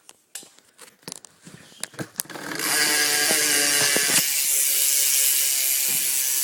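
Rear wheel of a BMX bike coasting on a Shadow Raptor V2 cassette hub with a 9-tooth left-hand-drive cassette. A few scattered clicks come first, then from about two and a half seconds in the hub's freewheel clicks rapidly and steadily, a pretty loud ratcheting buzz.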